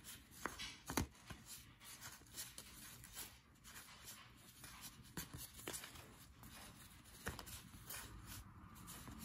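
Faint, irregular flicks and slides of cardboard baseball cards being thumbed one by one through a hand-held stack, with soft snaps of card edges every half second or so.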